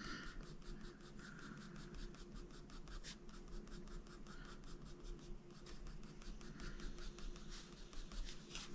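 Faber-Castell Polychromos coloured pencil scratching faintly on paper in rapid short strokes, shading fur.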